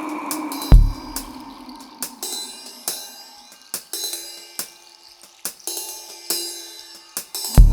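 Background music: sparse percussion with cymbal or hi-hat ticks and high shimmer, and a deep bass hit about a second in and another near the end.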